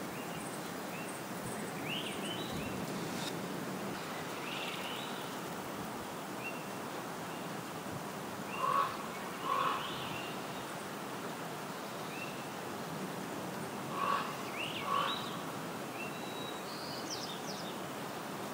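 Outdoor nature ambience: a steady hiss with scattered short high bird chirps throughout, and two louder, lower paired calls, about nine and fourteen seconds in.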